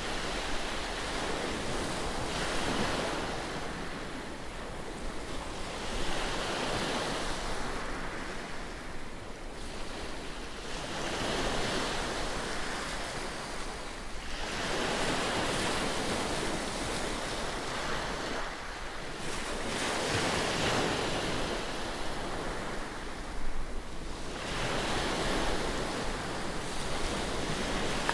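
Small sea waves breaking and washing onto a pebble beach, swelling and easing every four to five seconds.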